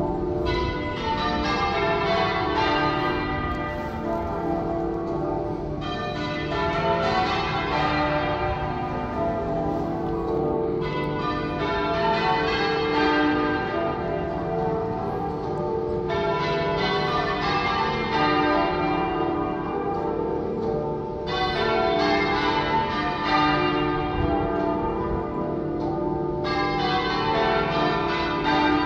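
Cathedral tower bells change ringing half-muffled: a leather muffle on one side of each clapper makes every other blow sound dull, the ringing of mourning and remembrance. The rows run on evenly, each lasting about five seconds.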